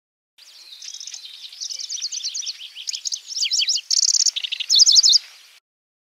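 Pallas's grasshopper warbler singing: a burst of about five seconds of rapid, varied high chirps and short trills that grows louder and ends in a run of sharp, repeated notes.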